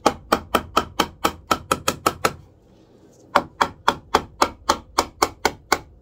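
Claw hammer tapping the end of a pressure-treated 2x4 to drive it into a tight squeeze. Two runs of quick taps, about four a second, with a pause of about a second between them.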